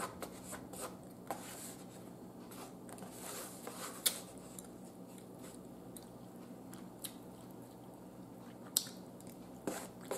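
Person chewing food in a mukbang, with scattered short mouth clicks and smacks and light taps of a fork against the plate, over a faint steady hum.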